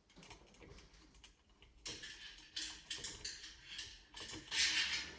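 Small metallic clicks and ticks as a hand screwdriver tightens a bolt into a T-nut on an aluminium extrusion frame, then a short rustling hiss near the end.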